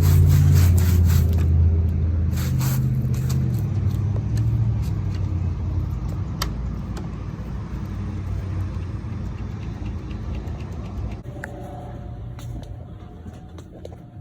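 A car's engine and road rumble, deep and steady at first, then fading gradually. Scattered light clicks and knocks sit over it.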